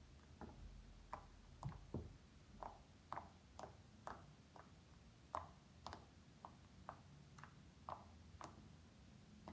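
Slime being squeezed and stretched by hand, giving faint small pops and clicks about two a second.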